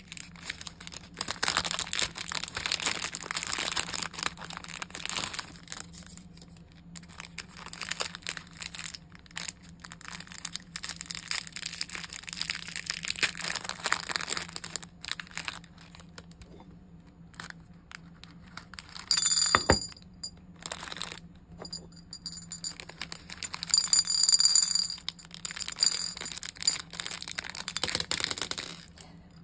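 Clear plastic bead bag crinkling as it is handled and pulled open. Small plastic star beads rattle and clink inside it, with a couple of brighter bursts of clinking about two-thirds of the way through as they are shaken out toward a dish.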